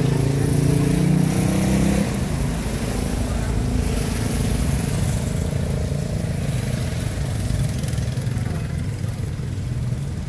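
A small motorcycle's engine passes close by, its pitch rising a little, and drops away about two seconds in. After that the street traffic gives a steady low rumble.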